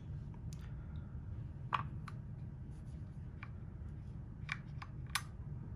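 Scattered light clicks and taps of a plastic tourniquet holder and its metal mounting plate being handled, about seven small knocks spread through, over a faint steady low hum.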